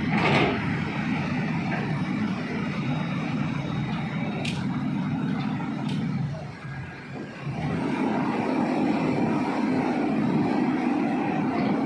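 Hitachi excavator's diesel engine running steadily. Its sound drops away briefly about six and a half seconds in, then comes back a little stronger. Two short sharp clicks come about four and a half and six seconds in.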